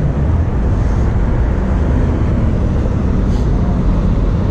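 Steady city street traffic noise, passing cars and buses, heaviest in the low end and with no distinct events.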